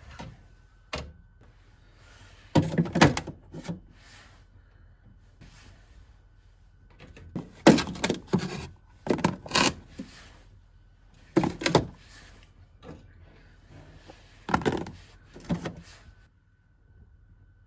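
Clunks and knocks of groceries and storage containers being handled and put away in a fridge, coming in about six short clusters with pauses between them.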